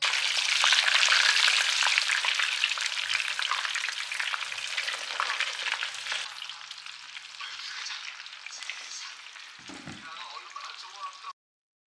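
Food frying in hot oil in a pan, sizzling and crackling loudly at first and gradually settling down. It cuts off abruptly shortly before the end.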